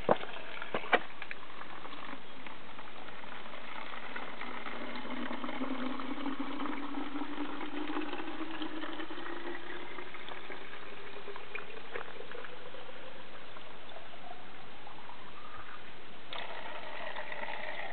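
Spring water running from a pipe spout into a plastic bottle. The pitch of the filling rises steadily as the bottle fills. Two sharp clicks come in the first second.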